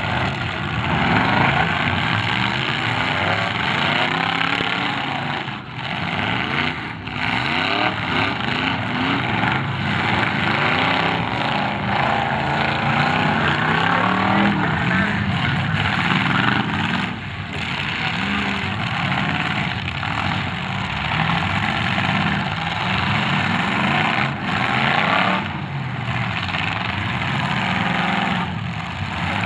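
Several demolition derby cars' engines revving hard at once, their pitches rising and falling over one another as the cars push against each other.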